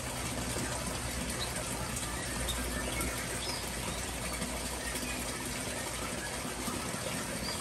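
Steady rain falling in and around a planted outdoor aviary, with a few faint, short bird chirps over it.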